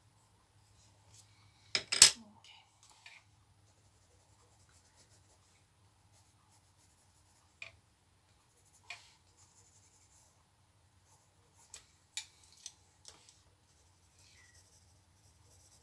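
Watercolour brush and palette being handled: a sharp click about two seconds in, then a few fainter taps and light scratching of a brush working on paper, over a faint low hum.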